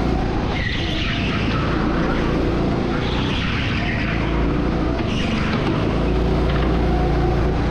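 Go-kart running at speed, its engine note steady with small shifts in pitch, while a higher hiss swells three times as the kart is steered through the corners.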